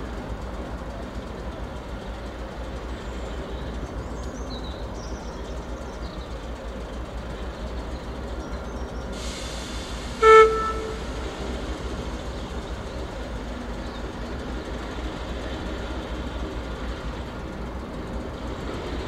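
British Rail diesel shunting locomotive running with a steady low rumble, giving one short toot on its horn about ten seconds in, just after a brief hiss.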